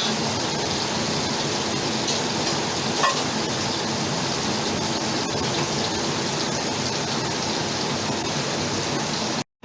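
Dried anchovies (ikan bilis) sizzling steadily as they fry in hot oil until crisp. There is a faint tick about three seconds in, and the sound cuts off abruptly just before the end.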